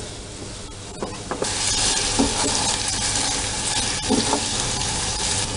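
Pineapple chunks and sugar sizzling in a metal kadhai while being stirred with a wooden spatula, with a few knocks of the spatula against the pan. The sizzle comes in suddenly about a second and a half in and then holds steady.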